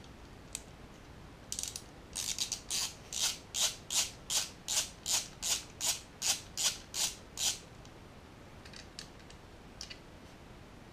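Ratcheting crosshead screwdriver undoing one of the screws that hold an alternator's voltage regulator and brush holder: a run of about fifteen evenly spaced ratchet clicks, about two and a half a second, starting a second or so in and stopping after about six seconds. A few faint ticks follow near the end.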